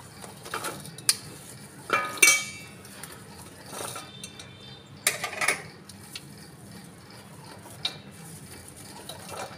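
Cut radish and carrot sticks being tossed by hand into a stainless steel bowl of dry spices. There are several scattered knocks and rustles against the bowl, and one knock about two seconds in sets the bowl ringing briefly.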